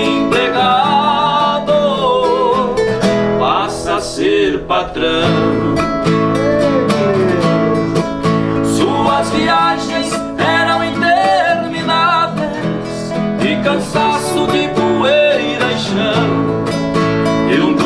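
Two nylon-string acoustic guitars playing a sertanejo song's instrumental introduction, with a plucked melody over the chords.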